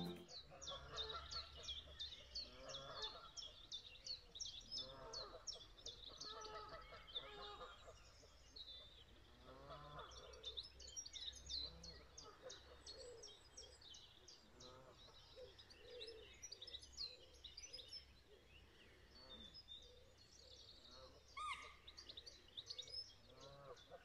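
Faint outdoor birdsong at a lakeside: many short, high chirps throughout, with lower waterfowl calls every few seconds.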